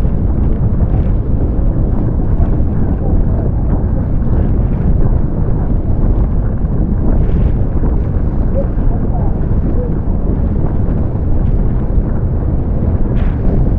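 Heavy wind buffeting the microphone, with water rushing and spraying around a catamaran sailing fast in strong wind. The noise is loud and steady, with no let-up.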